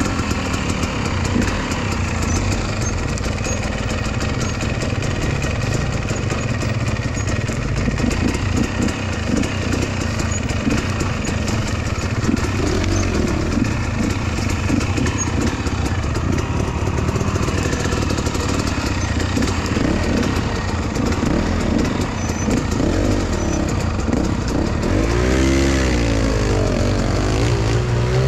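Enduro dirt-bike engine running hard on an off-road climb, its pitch rising and falling as the throttle is worked, with a burst of revving up and down near the end.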